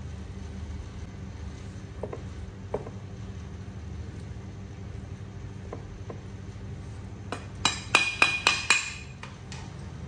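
Rice noodles being tossed in a nonstick pan with a wooden spatula and a metal turner: a couple of soft knocks, then, about seven seconds in, a quick run of about seven sharp, ringing metal clinks against the pan, over a steady low hum.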